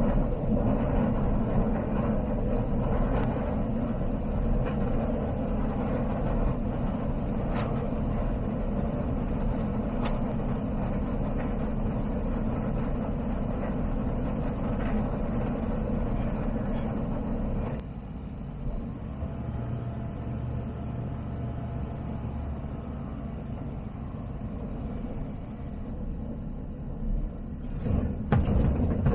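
Light-aircraft cabin noise picked up through the intercom: the Zenith CH 701's ZD C100 engine (a Rotax 912ULS clone) and wind during a slipping approach, dropping to a lower level about two-thirds of the way through. Near the end come the touchdown and the rumble of the tyres rolling on gravel.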